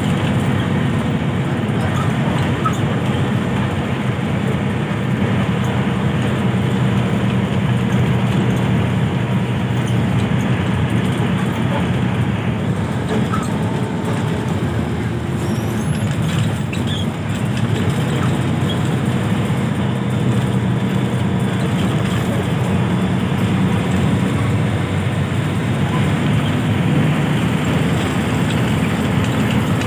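Bus on the move: steady engine drone and road noise at an even speed.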